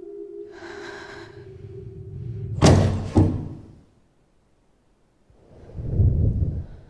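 A steady, eerie drone from the horror-film score is cut off by two loud bangs about half a second apart. Near the end comes a deep, rumbling boom.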